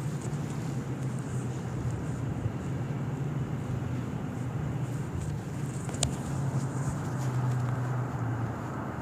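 A steady low hum with a single sharp click about six seconds in.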